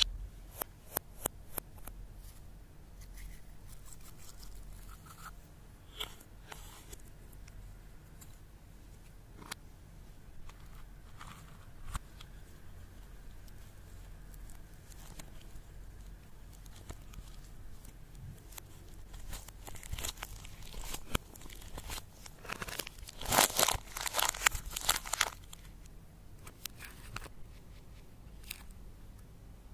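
Hands working makeup and slime together: scattered sharp clicks and crinkling, with a loud burst of crackling and crunching about 23 seconds in that lasts two to three seconds.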